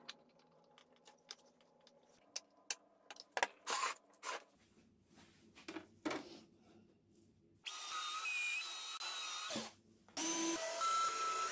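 Cordless drill-driver running in two bursts of about two seconds each, driving screws into a board on the sander frame. Before that come scattered knocks and clicks of wooden parts and tools being handled.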